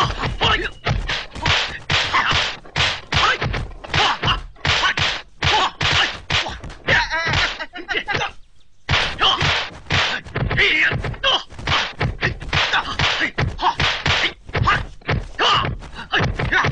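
Rapid hand-to-hand fight sound effects: punches and blocks landing as sharp whacks and thunks, several a second, mixed with the fighters' grunts and shouts. There is a brief pause about eight seconds in.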